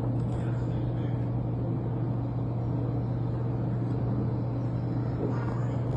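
A vehicle engine running with a steady low drone over a rumbling background.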